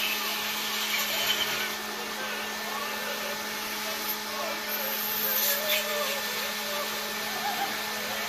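Electric wood lathe running with a steady motor hum while a hand-held turning chisel scrapes into a large spinning wooden cylinder; the cutting hiss swells and fades, strongest around five seconds in.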